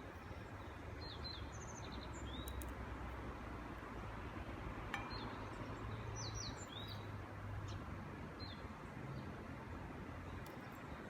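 Small birds chirping in short, scattered high calls over a steady background hiss, with a single sharp click about five seconds in.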